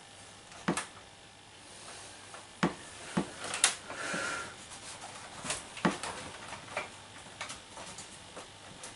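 Scattered sharp clicks and knocks, a handful spread irregularly, from hands handling a video lead and its plug at the Amiga 500's video port.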